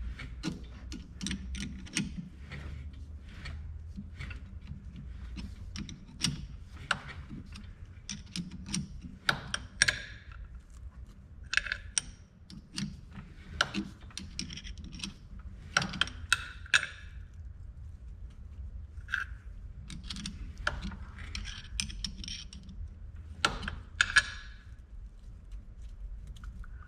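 Irregular metallic clicks and clinks of hand work on a small metal knob, most likely a 10 mm × 1.0 thread being tapped by hand with the lathe stopped. A low steady hum runs underneath.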